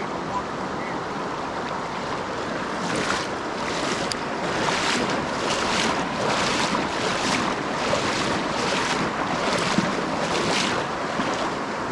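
Flowing river water; from about three seconds in, a run of regular splashing swishes, a little under two a second.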